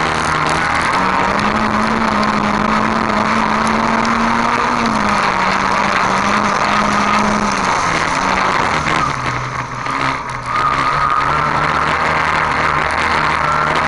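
Dirt-track race car engine running hard, heard from a camera mounted on the car, its pitch stepping up and down, with a brief dip in loudness about two thirds of the way through. A steady noise of tyres on loose dirt lies under it.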